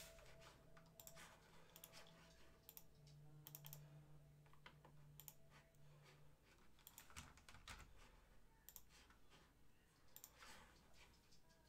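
Near silence: room tone with faint, scattered clicks and a low hum that stops about six seconds in.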